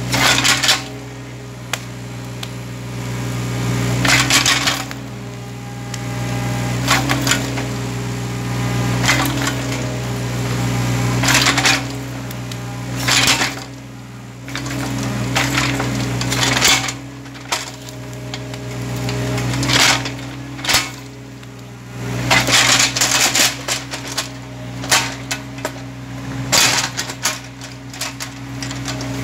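Hitachi mini excavator's diesel engine running steadily, its hydraulics swelling and easing every few seconds as the bucket works at a tree stump. Repeated sharp cracks and crunches of wood and roots breaking and the bucket scraping against the stump and soil.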